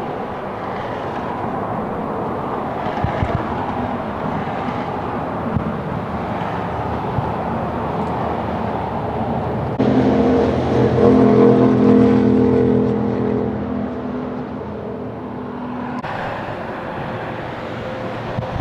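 Steady outdoor rushing noise of wind and traffic. About halfway through, a passing semi-truck's engine drones loudly for several seconds, peaking and then falling away.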